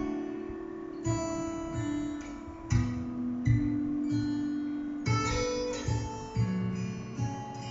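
Recorded acoustic guitar music: chords strummed at a slow, uneven pace, each one left to ring, the sound fading away near the end.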